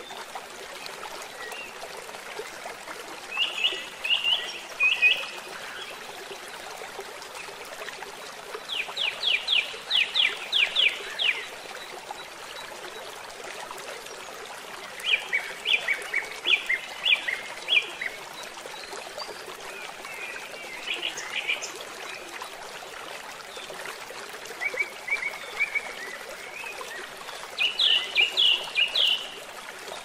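Small woodland stream running over rocks in a steady rush. A songbird sings about six short phrases of quick, high notes over it, louder than the water.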